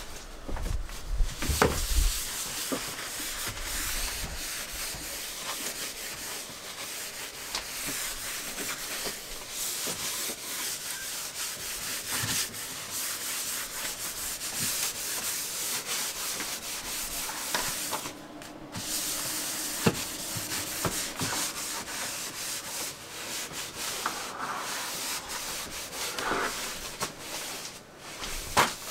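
A cloth rubbing back and forth across a worktop, a continuous scratchy wiping as the surface is cleaned down with acetone ahead of a resin pour. There is a short break about two-thirds of the way through, and a few knocks.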